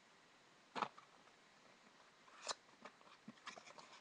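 Faint handling noise of a small cardboard treat box being turned over in the hand: a soft knock about a second in, another about halfway through, then a scatter of small clicks and rustles near the end.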